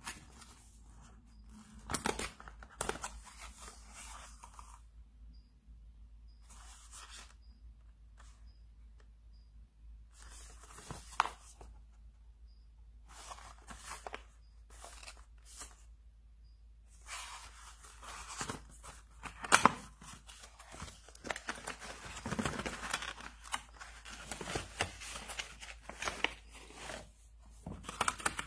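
Cardboard product packaging being opened and handled: short scrapes, slides and taps of card on card and on hands, in irregular bursts, sparse in the first half and busier in the second half.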